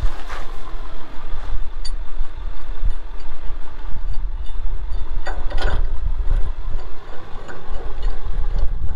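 Metal clinks from a recovery hitch shackle being fitted into a truck's receiver hitch, with a louder clatter about five and a half seconds in, over a steady low rumble.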